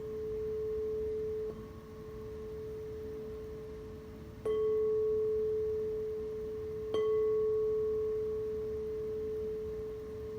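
Singing bowl ringing with one steady, pure tone. It is struck again twice, about halfway through and a few seconds later, and each strike brings the ring back up.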